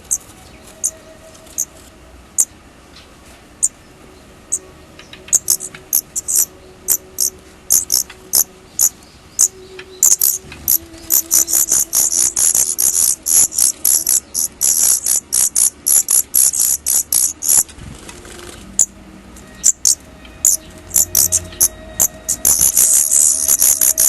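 Daurian redstart chicks giving short, high, thin calls, scattered at first, then coming fast and dense about ten seconds in, thinning out, and picking up again near the end.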